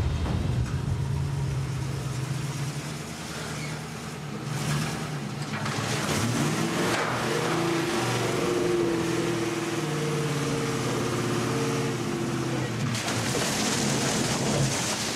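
Land Rover Defender engine running at low speed as it climbs a steel seesaw ramp. From about 13 s, water churns and splashes in the damper box as the seesaw tips down and the fan is driven through the water.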